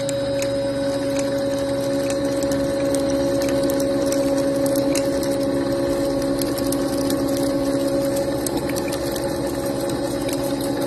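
Machine spindle power-tapping a large thread into a metal block with a spiral-flute tap: a steady motor hum with two held tones, growing slightly louder over the first few seconds as the cut goes deeper, with scattered faint ticks.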